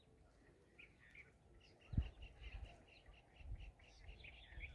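Faint bird chirping: a quick run of short, high chirps repeating over a few seconds, with a few low bumps on the microphone.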